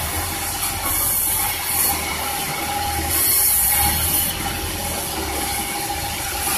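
Sawmill machinery running while a durian log is sawn: a steady mechanical hum and whine under a rushing hiss that swells several times, around one, two and three to four seconds in.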